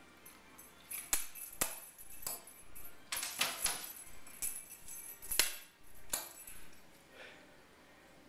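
Jingling and sharp taps from a dangling cat toy being batted about, in irregular shakes with a bright metallic ring, stopping about seven seconds in.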